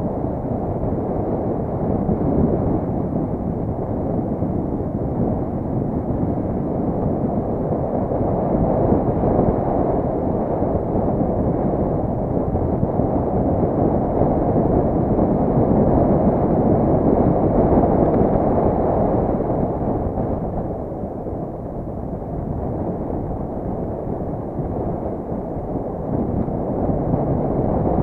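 Muffled wind rush on an action camera's microphone and bicycle tyre rumble on concrete during a fast downhill ride. The rush swells midway, eases a little later on, and rises again near the end as the speed changes.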